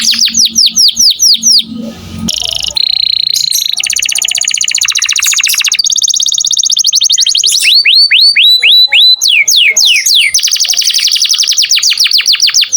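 Domestic canary singing in rapid repeated phrases: fast runs of identical down-slurred whistled notes, a buzzy fast trill in the middle, then slower sweeping notes that speed up again near the end.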